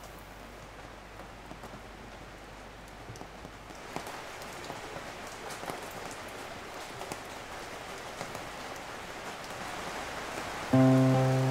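A steady rain-like patter with scattered small ticks, growing louder about four seconds in; music with sustained low notes comes in near the end.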